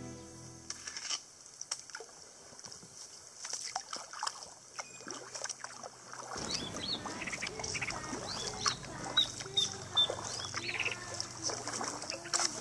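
Birds calling in a mangrove forest: a busy mix of short whistles and nasal, honking calls that sets in about halfway through. Earlier there are scattered drips and small splashes of water from the kayak's paddle.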